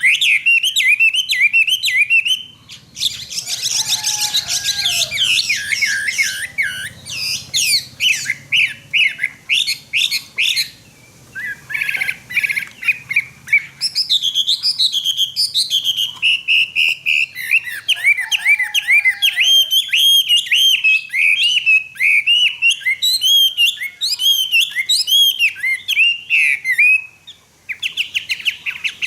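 Caged Chinese hwamei singing loudly: a long, varied song of rapid whistled slurs and trills. The song breaks off briefly twice, at about eleven seconds in and near the end, then resumes.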